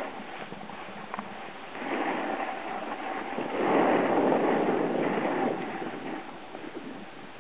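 Snowboard sliding and scraping over packed snow, with no distinct tones or knocks. The scraping grows louder about two seconds in, is loudest around four to five seconds, and then eases off.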